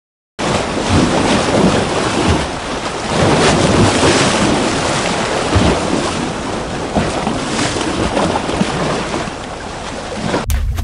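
Recorded ocean surf ambience: a dense, steady rush of waves. Near the end it cuts off suddenly and is replaced by a low, steady underwater drone as the soundscape switches with the viewer's height.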